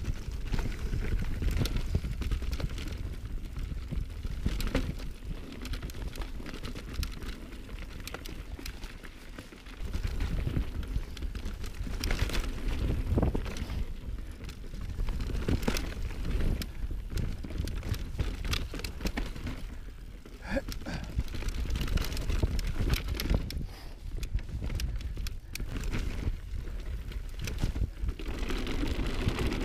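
Mountain bike being ridden over rough trail: tyres crunching and clattering over rocks and roots, with sharp rattles from the bike. Wind rumble on the camera microphone runs under it all, swelling and dipping.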